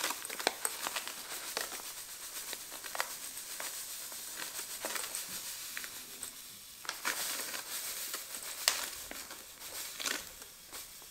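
Paper bag of granulated sugar crinkling and rustling in short crackles as sugar is poured from it into a bowl on a kitchen scale.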